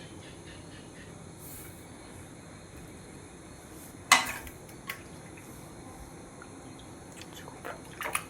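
Utensils clinking against dishware while food is served out: one sharp ringing clink about four seconds in, a lighter one just after, and a few lighter clinks near the end.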